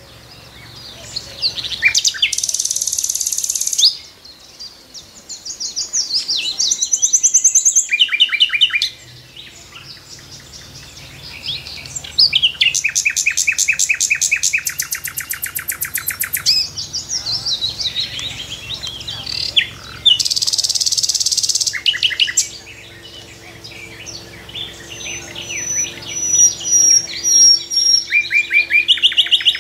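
A songbird singing in separate phrases of rapid, high trills and chirps, with short pauses between the phrases.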